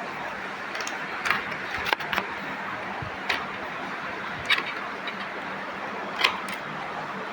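Scattered sharp clicks and clinks of tools and parts being handled during washing machine disassembly, about seven in all at irregular intervals, over a steady background hiss.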